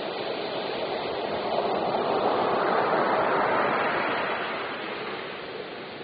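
Ocean waves breaking on the shore: a steady wash of surf that swells louder for a couple of seconds in the middle as a wave breaks, then eases back.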